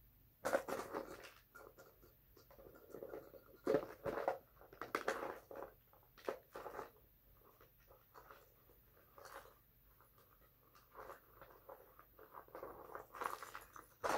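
Handling and rummaging through a plastic tub of jewelry: irregular clicks, clatters and rattles of plastic and beaded pieces knocking together and against the tub.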